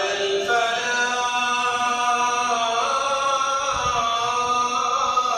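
A single voice chanting Islamic prayer in long, drawn-out notes that slowly rise and fall in pitch.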